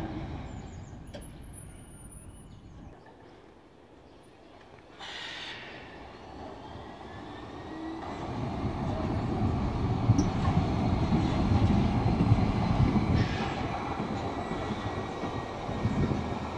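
Frankfurt N-type tram car, built 1963, rolling slowly on its rails. Quiet at first, with a brief hiss about five seconds in, then the rumble of its wheels grows as it comes closer and passes by, with a faint high whine over it.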